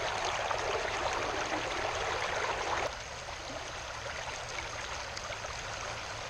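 Small river flowing, a steady rush of water that drops suddenly to a quieter flow about three seconds in.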